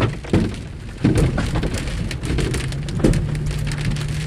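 Large hailstones, about two inches across, pelting a vehicle's roof and windshield, heard from inside the cabin. The impacts come as a dense, continuous clatter, with several louder bangs near the start, about a second in and about three seconds in.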